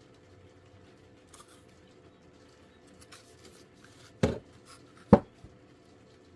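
Parkside tool being handled: a few faint clicks, then two sharp loud knocks about a second apart.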